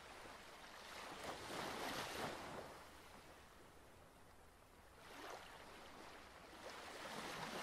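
Faint sea surf: waves washing against shore rocks, swelling up twice and falling away.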